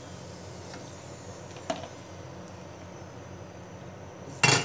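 Hot oil in a frying pan bubbling with a faint steady hiss over a low hum, with a light click about two seconds in and a short loud metal clatter near the end.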